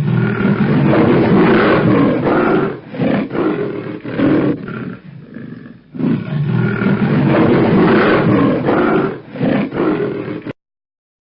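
Fan-made monster dinosaur roar sound effect, layered from stock animal roars: two long roars, the second starting about six seconds in, each ending abruptly.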